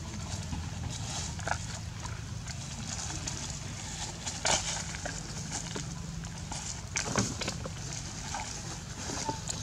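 Thin plastic cup crinkling and crackling as a macaque handles it: a few short sharp crackles, the loudest about halfway through and again about two-thirds in, over a steady low hum.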